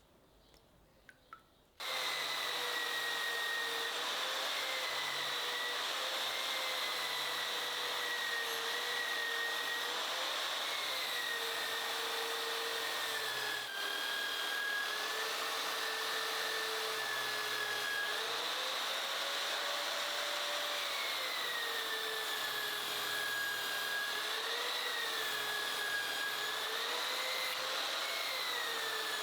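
Small electric power tool motor running at high speed, its pitch dipping and recovering again and again as it is pressed into the work. It starts about two seconds in and cuts off suddenly at the end.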